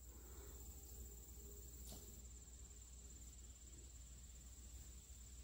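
Near silence in woodland, with a faint steady high-pitched trill of insects, typical of crickets, and a single faint tap about two seconds in.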